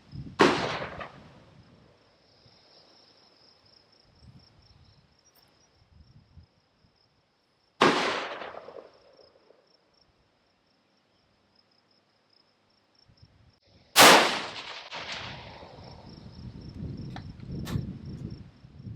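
Three rifle shots about seven seconds apart, each a sharp crack with a short echoing tail, over a steady high drone of insects.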